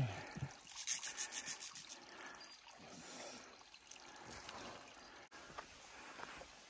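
Faint trickle of spring water, with a short run of quick rubbing, scraping sounds about a second in.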